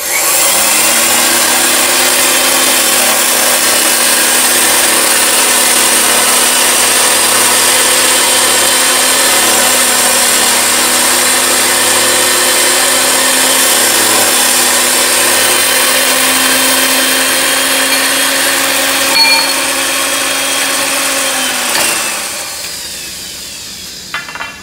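Electric pipe threading machine running steadily, spinning a black steel pipe while its built-in wheel cutter is fed in to cut it. A sharp clink shortly before the end, then the motor is switched off and winds down with a falling pitch.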